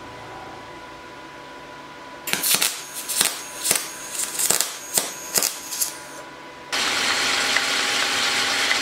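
Welding arc crackling in about eight short bursts as a grooved axle shaft is built up with weld, then a metal lathe running with a steady loud hiss of cutting as the welded shaft is turned down.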